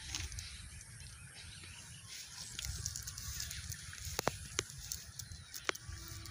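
Mud-laden cast net being shaken out and picked through by hand: faint rustling with a few sharp clicks and crackles, most of them in the second half, over a low steady rumble.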